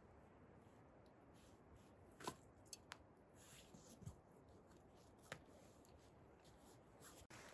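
Near silence with a few faint, scattered short clicks.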